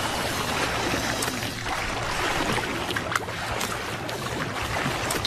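Water splashing and churning as a Nile crocodile thrashes in shallows, tearing apart a wildebeest calf carcass, with a few sharper splashes.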